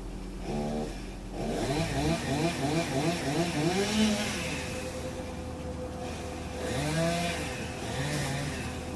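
Chainsaw revving in a quick run of short throttle bursts, its pitch rising and falling several times, with two more revs near the end.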